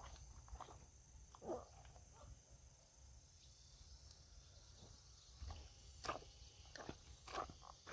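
Faint outdoor ambience: a steady high drone of insects, with a few soft footsteps on a dirt path that come more often near the end.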